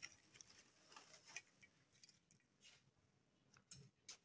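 Near silence, with a few faint soft clicks and squishes from hands tossing raw fish pieces with herbs in a bowl.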